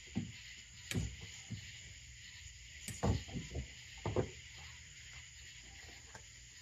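A few scattered knocks and clunks from handling parts and tools while working in the boat, loudest about one, three and four seconds in, then they stop. A steady insect chorus of crickets runs underneath.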